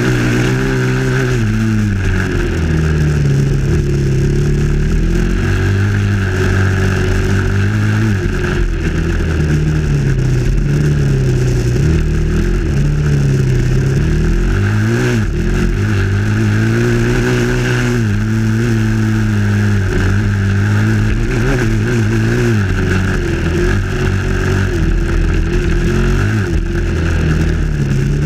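Dirt bike engine running under load along a trail, its pitch climbing and dropping again and again as the bike speeds up and slows.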